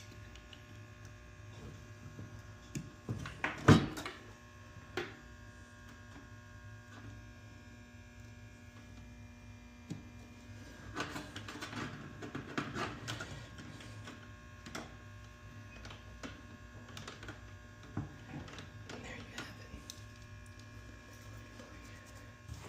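Steady electrical hum with scattered light clicks and knocks from hands working on a fire alarm panel while its backup battery is connected. The loudest knock comes about four seconds in, and a cluster of clicks follows around the middle.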